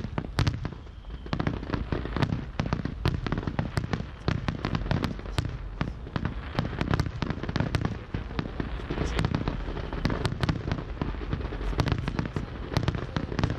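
Aerial firework shells bursting in quick succession: many sharp bangs, several a second, over a steady low rumble.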